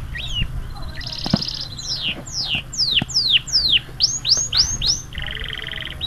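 Yellow domestic canary singing: a fast high trill, then a run of about six downward-sweeping whistles, four quick upward-sweeping notes, and a lower rolling trill starting near the end.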